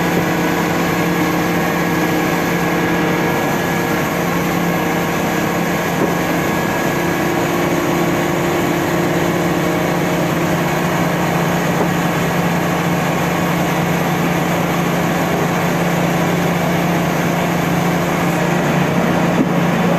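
Mobile crane's engine running steadily, a continuous even hum.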